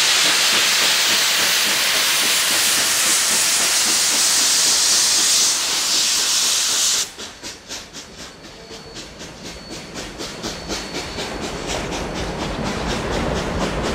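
Narrow gauge steam locomotive letting off a loud, steady hiss of steam that cuts off abruptly about halfway through. Its exhaust chuffs then take over, coming faster and louder as the train gets under way.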